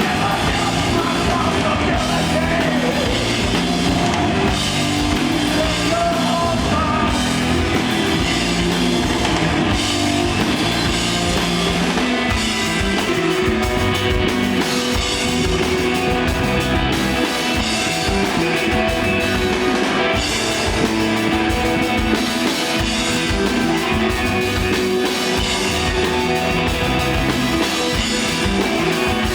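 Live rock band playing: electric guitar, bass guitar and drum kit in a steady, continuous instrumental groove.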